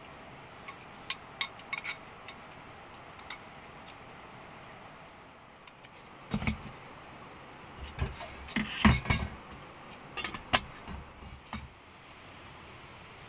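Light clinks and taps of small hard objects, like utensils or dishes, then a run of louder knocks and thumps about six seconds in, over a steady faint hiss.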